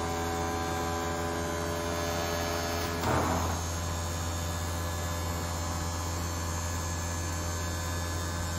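A 12-volt car roof AC circulating blower (Jet Air) running steadily with a low electric hum and a set of steady whirring tones, partly from the housing vibrating against the tabletop. About three seconds in there is a brief rustle of plastic bubble wrap.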